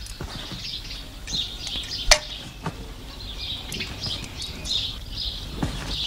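Birds chirping over and over, with a single sharp click about two seconds in and a few fainter ticks.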